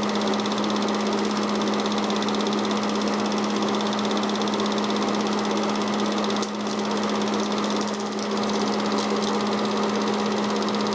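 Movie projector running as the silent home-movie film plays: a steady motor hum with a fast, even mechanical clatter from the film advance.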